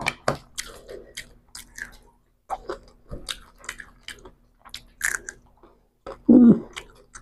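Close-up eating sounds of rice and fried hilsa eaten by hand: wet chewing, lip smacks and small crunches as short, sharp clicks several times a second. A louder, lower thump comes about six seconds in.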